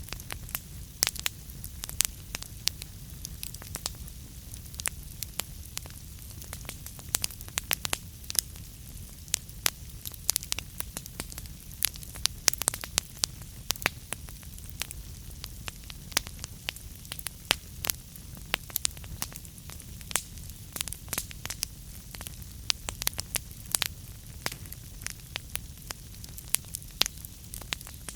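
Wood fire burning in a fireplace: a steady low rumble and hiss with dense, irregular sharp crackles and pops throughout.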